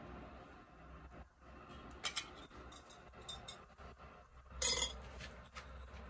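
Kitchen dishes clinking against a steel plate: a few light clinks, then one louder clatter a little before the end.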